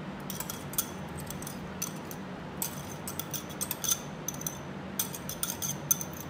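Spatula scraping and tapping inside a small glass jug, giving light, irregular clinks of glass as yogurt is scraped out into a glass mixing bowl.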